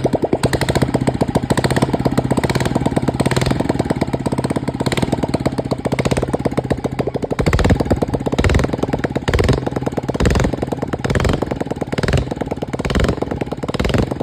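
Royal Enfield Electra single-cylinder engine running at idle with an even thumping beat, the revs surging briefly several times in the second half. It runs on freshly fitted cams, replaced because the old worn cams caused a tick-tick noise.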